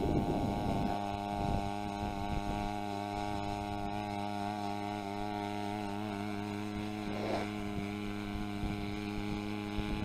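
A steady, even hum with a low pitched drone, settling in about a second in and holding unchanged.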